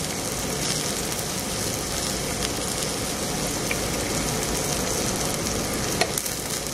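Black pork sizzling steadily as it grills, with faint scattered crackles and one sharp pop about six seconds in.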